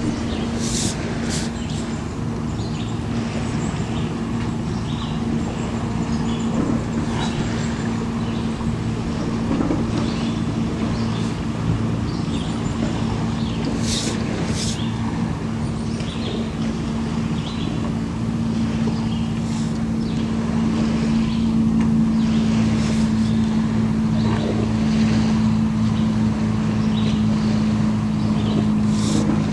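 A steady low mechanical hum with several constant tones runs throughout. A few brief, soft high hissing or scratching sounds come near the start, twice about halfway through, and near the end.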